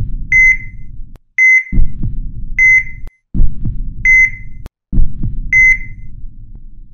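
Heart-monitor sound effect: five short, high electronic beeps about a second or more apart over a low heartbeat that beats roughly every second and a half.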